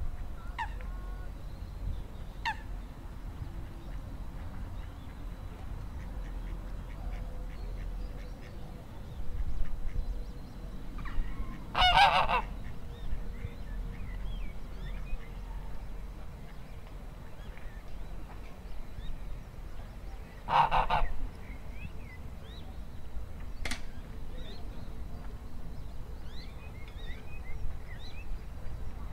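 Domestic goose honking twice, short loud calls about nine seconds apart, with faint small-bird chirps in the background.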